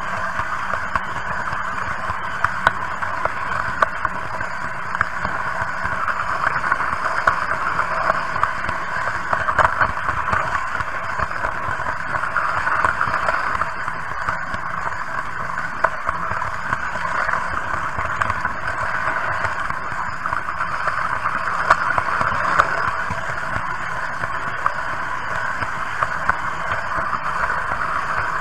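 Märklin H0 model train running along metal track: a steady rolling hum with frequent small clicks.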